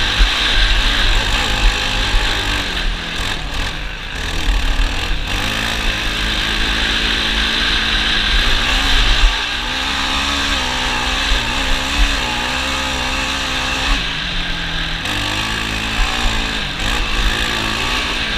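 ATV engine running under way, its pitch wavering up and down with the throttle, over a steady rushing noise.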